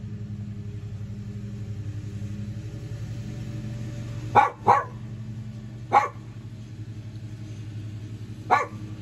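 A dog barking in short sharp barks: two quick ones about halfway through, another a second and a half later, and one more near the end, over a steady low hum.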